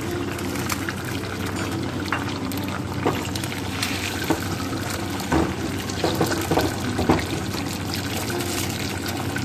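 Beaten egg sizzling in hot oil in a non-stick frying pan, a steady hiss with scattered crackles and pops.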